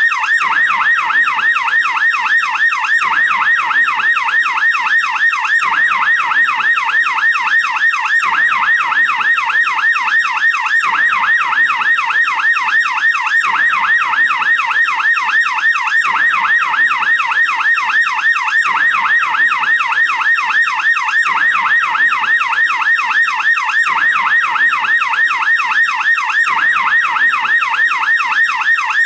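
American police yelp siren sounding continuously, its pitch sweeping rapidly up and down in a fast, even repeating cycle.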